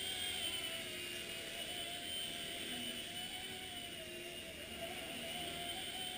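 Xieda 9958 mini RC helicopter in flight: its electric motor and rotor give a steady whine whose pitch wavers slightly as the throttle shifts.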